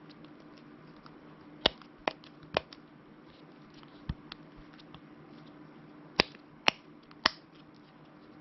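Silicone dimple fidget toy being pressed: about seven sharp pops as its silicone bubbles are pushed in, irregularly spaced in two bunches, over a faint steady hum.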